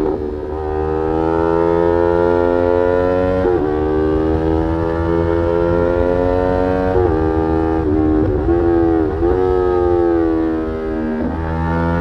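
Yamaha R3's 321 cc parallel-twin engine through an Arrow aftermarket exhaust, under way on the road. Its note climbs slowly and is broken by several short dips in pitch.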